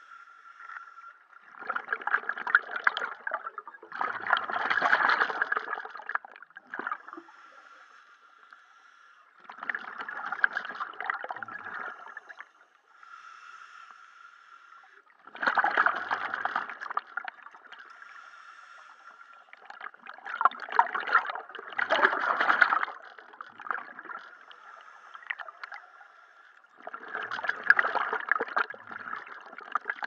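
Scuba diver breathing underwater through a Mares MV 12 S regulator: a noisy rush of exhaled bubbles every five to six seconds, with a faint steady tone between the breaths.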